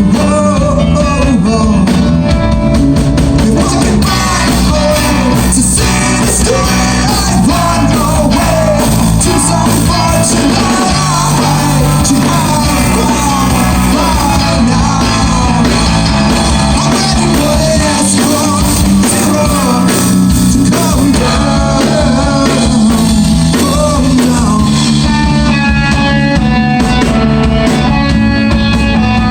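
Rock band playing a song, with a lead vocal sung over guitar, bass and drum kit.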